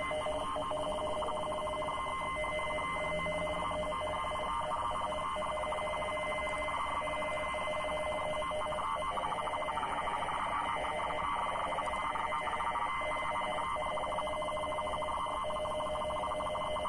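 Deutscher Wetterdienst 50-baud RTTY (radioteletype) weather broadcast on shortwave, heard through a receiver's speaker: a fast, steady warble between two tones over band hiss, carrying the marine forecast as it is decoded.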